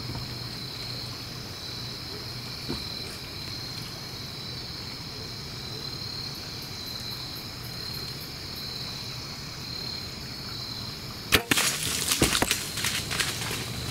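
Steady insect chorus, then about eleven seconds in a single sharp crack of a bow shot: the arrow is loosed and strikes the whitetail doe. A quick run of crunching follows as the doe bolts through dry leaf litter.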